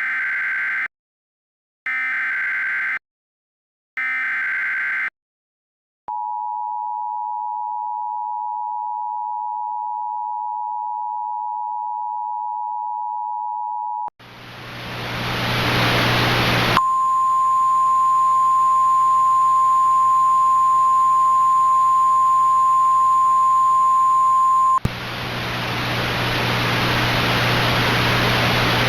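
Emergency Alert System SAME header data bursts sound three times, each about a second long, followed by the two-tone EAS attention signal held steadily for about eight seconds. Then a radio static hiss with a low hum comes in, and the single steady NOAA Weather Radio warning alarm tone sounds over it for about eight seconds. Together these tones signal that a severe weather warning is about to be broadcast.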